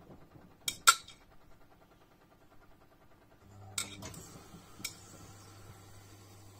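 1994 Bompani BO27027 washer dryer on its wash cycle: the drum motor's low hum stops and two sharp clicks come just under a second in. After a pause of a few seconds the motor starts again with a steady low hum, and two more sharp clicks follow.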